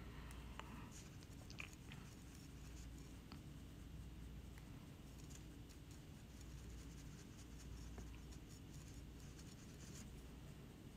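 Near silence: a low room hum with a few faint, scratchy ticks of a small paintbrush dabbing glaze onto an unglazed bisque ceramic palette.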